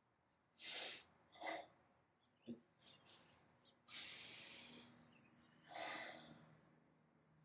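Karateka breathing hard and audibly through a Goju-ryu kata: several short, hissing exhalations and one longer one about four seconds in. A short knock about two and a half seconds in.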